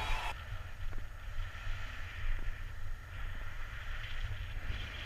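Wind buffeting the microphone: a low, gusting rumble that rises and falls. The brighter airflow hiss of the preceding flight shot cuts off about a third of a second in.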